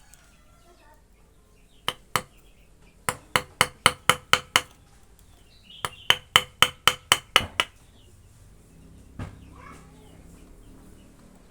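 Hammer blows in quick runs: two strikes, then about eight at roughly five a second, then another run of about eight, each strike with a short ring.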